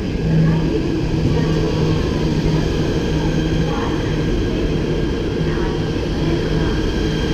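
KTM ETS electric train at close range, a loud, steady hum with a low droning tone that swells and eases slightly.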